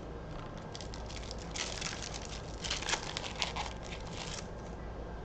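Crinkling and tearing of a trading-card pack's foil wrapper as the next pack is torn open.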